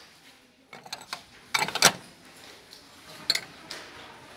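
Stacked square plates knocking and clinking against each other as they are handled and one is lifted off the stack, in a series of short sharp clinks with a louder pair about two seconds in.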